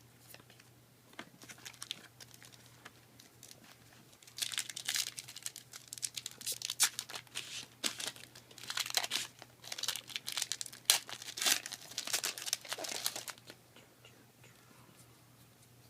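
Yu-Gi-Oh! booster pack wrapper being crinkled and torn open: a few faint clicks, then from about four seconds in a run of loud crinkling, rustling bursts that stops about two seconds before the end.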